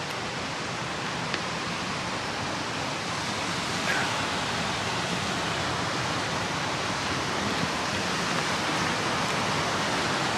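Waterfall: white water cascading down a rocky chute, a steady rushing that grows a little louder toward the end.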